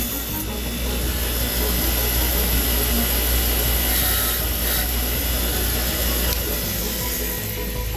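Grinding wheel running with the cut end of a 6-32 screw held against it: a steady motor hum under a hissing grind as the screw's tip is rounded off. The grinding eases near the end.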